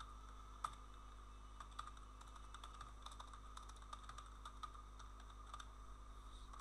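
Faint computer keyboard typing: quick, irregular keystrokes, with two louder clicks in the first second, over a steady low hum.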